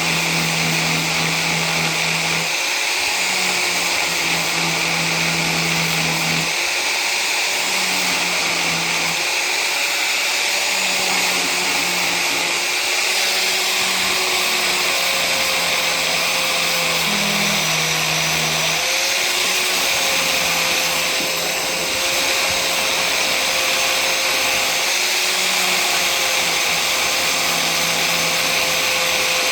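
Angle grinder running with a sanding disc, taking down the edge of a door where it rubs against its frame. Steady loud whirr with its motor note wavering slightly throughout.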